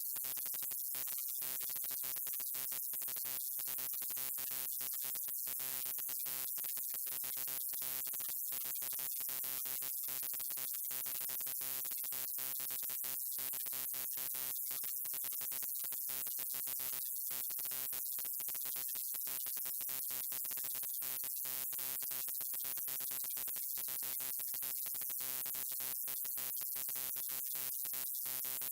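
Neon sign buzzing: a steady electrical hum with evenly spaced overtones over a bright hiss, broken by many rapid, brief flickers.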